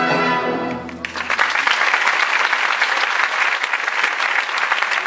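An orchestra's final held chord fades out about a second in, and an audience then applauds steadily.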